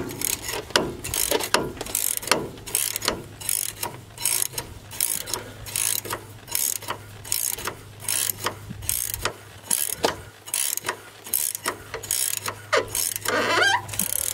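A hand wrench working the rusty top nut of a Bilstein shock absorber, clicking in a steady rhythm of about two strokes a second. A rising metal squeak comes near the end.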